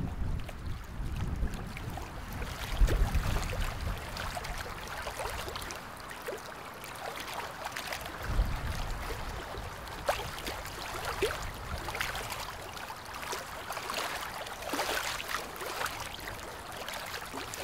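Water sounds: irregular light splashes and lapping trickles, with low wind rumble on the microphone during the first few seconds and again briefly around the middle.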